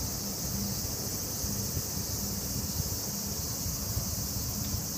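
Steady high-pitched insect chorus over a low, uneven rumble of wind and handling on the microphone.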